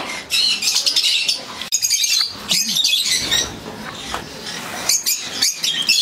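Many small parrots calling together, a dense chatter of short, shrill squawks and chirps overlapping one another.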